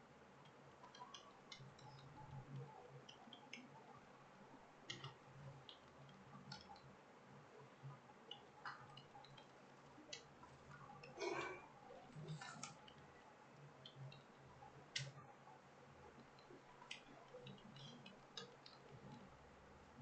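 Typing on a computer keyboard: faint, irregular keystroke clicks, with a couple of louder clicks a little past halfway and about three-quarters of the way through.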